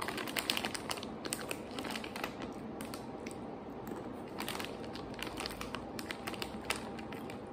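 A plastic snack bag crinkling as a hand rummages in it, mixed with crisp crunching as imo kenpi, hard fried sweet potato sticks, are chewed; irregular crackles and crunches throughout.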